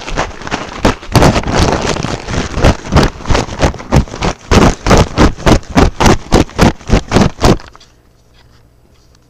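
A loud, rapid series of knocks or bangs, about three to four a second, over a rough rattling noise, which stops suddenly near the end.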